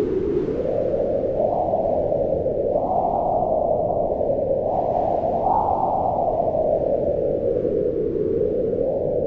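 Howling mountain wind: a steady band of rushing noise whose pitch rises and falls in slow gusts, climbing highest about three seconds and five and a half seconds in.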